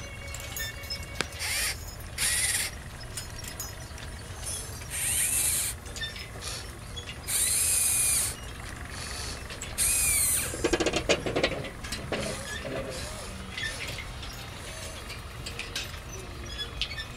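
Small electric motors and gears of a remote-control model excavator whining in repeated short bursts as it works, some bursts rising and falling in pitch, with small clicks and rattles between them.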